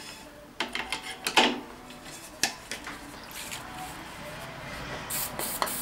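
Metal clinks and knocks of hands working the lathe's tool post and compound, then short hissing sprays from an aerosol can of cutting oil, about three and a half seconds in and again near the end.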